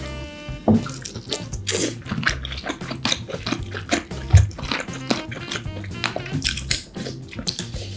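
Background music with a stepping bass line, over frequent sharp clicks and cracks of steamed king crab shell being handled and picked apart and eating noises; the loudest crack comes about four seconds in.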